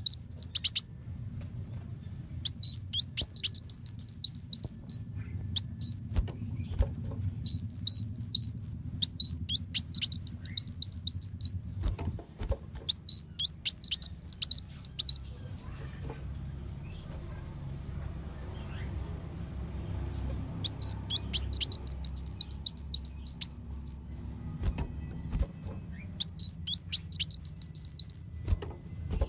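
Kolibri wulung sunbird singing in repeated bursts of rapid, sharp, high chattering notes, each burst lasting about one to three seconds, with pauses between them. A faint low hum runs underneath.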